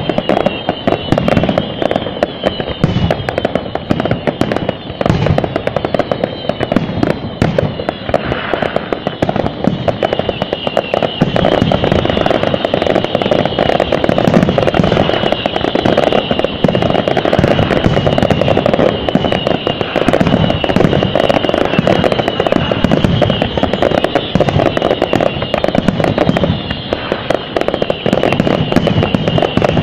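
Fireworks display: a continuous barrage of aerial shells bursting, with rapid overlapping bangs that never let up.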